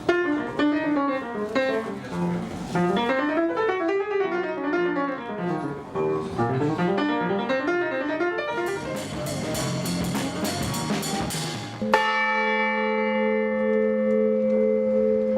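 Church bells ringing in quick, rising and falling runs of notes. About twelve seconds in, a single bell is struck once and rings on steadily until it cuts off abruptly.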